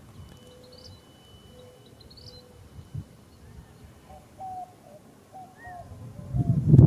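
Background birdsong: a few soft, low, level notes about a second apart, a thin high whistle and short rising chirps, then a quick run of short hooked notes. Near the end a loud low rumble sets in and drowns them out.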